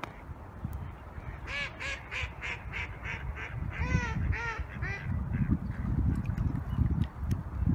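Waterfowl calling: a quick run of about ten short calls, roughly three a second, loudest a little past the middle, followed by a low, uneven rumble.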